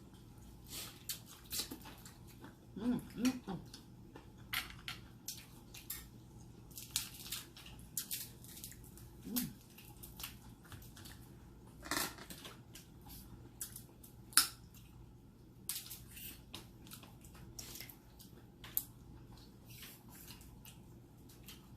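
Quiet close-up eating sounds: scattered clicks, cracks and mouth smacking from someone eating a seafood meal, with a couple of brief low voice sounds about 3 and 9 seconds in.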